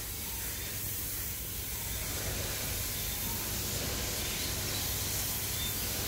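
Steady, even outdoor background hiss, strongest in the high range, over a low steady hum, with no distinct sound standing out.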